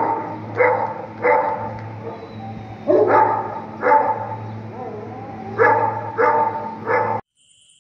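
Large dogs in a kennel barking repeatedly, about eight separate barks over a steady low hum. The sound cuts off suddenly near the end.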